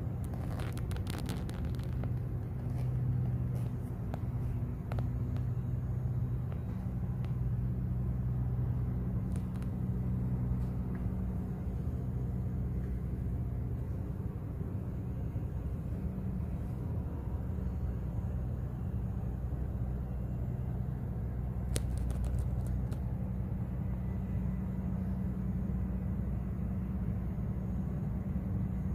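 Steady low city rumble with a droning hum, heard from high up, with a few sharp clicks about a second in and again about two-thirds of the way through.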